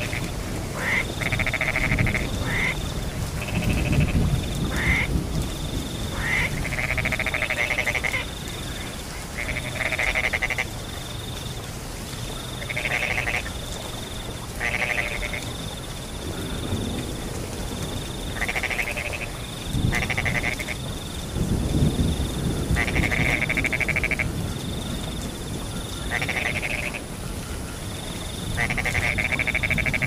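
Frogs croaking in a chorus, calls of about a second each coming every second or two. Behind them a high cricket trill pulses on and off, with low rumbling swelling twice, a few seconds in and again past the middle.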